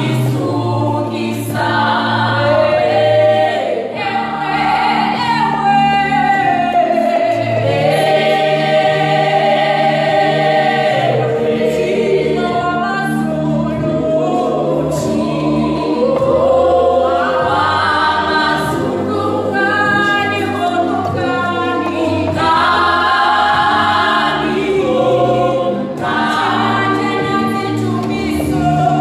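A church praise and worship team singing a gospel song together in harmony, with sustained low notes underneath.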